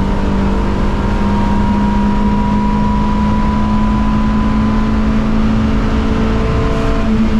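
Simca Rallye 2's rear-mounted four-cylinder engine pulling hard in gear, heard from inside the cabin. Its note is steady and climbs slowly, over road and wind noise.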